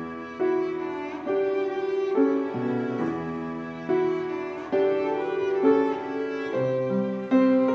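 Live cello and grand piano playing a slow piece together: bowed cello notes over piano, a new note or chord about once a second.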